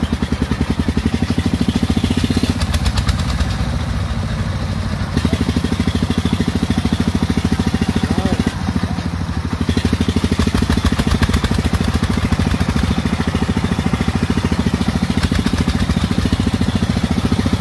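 Single-cylinder diesel engine of a công nông farm truck running with a fast, even chugging, its note shifting briefly a couple of times.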